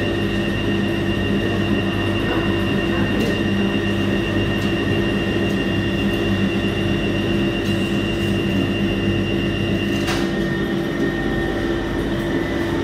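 Ipso WE165 commercial washer-extractor running near the end of its cycle: a steady motor hum with a higher whine over it. About ten seconds in there is a click and the higher whine cuts off.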